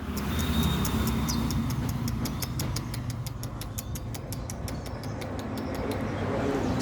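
Lovebird singing its long rapid chattering song, a steady run of sharp high chirps about six a second, over a low steady rumble.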